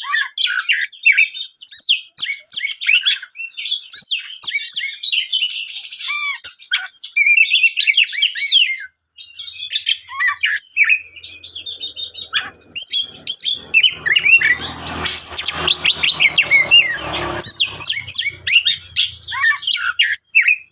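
Oriental magpie-robin (kacer) in agitated full song: a fast, nearly unbroken stream of varied whistles, chirps and trills, briefly pausing about nine seconds in. A faint low hum runs under the second half, with a rush of noise in the middle of it.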